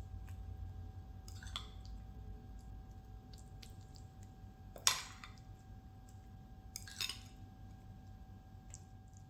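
A few short, soft, squishy handling sounds of hands working soft dough, the loudest about five seconds in, over a steady low hum.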